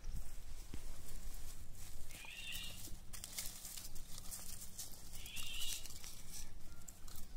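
Entlebucher Mountain Dog puppies moving about on bark mulch and grass, with scattered rustling and crunching clicks from paws and chewing. A short high call repeats about every three seconds.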